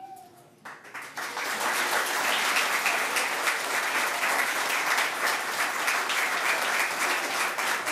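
Audience applauding. A few scattered claps about a second in build quickly into steady, dense applause.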